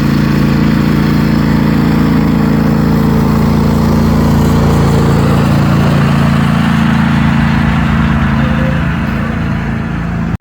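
Small engine of a kiddie train ride running steadily, a loud, even drone close by that eases off slightly near the end.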